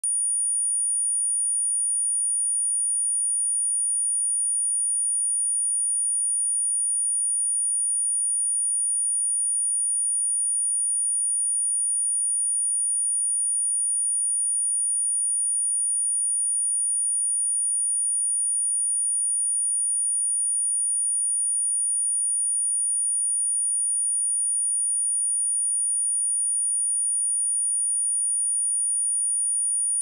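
A single 9506 Hz sine-wave test tone, a high-pitched pure tone held steady at one pitch and level. It is a speaker test and speaker-cleaning tone, meant to shake water and dust out of a speaker.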